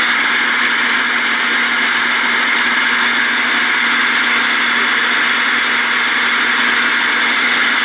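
CB radio receiver hiss from the speaker: a loud, steady static rush with a faint constant hum underneath, coming in abruptly as the transmission ends.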